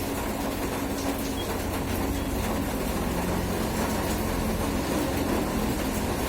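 Steady heavy rain, an even unbroken hiss with a faint low hum underneath.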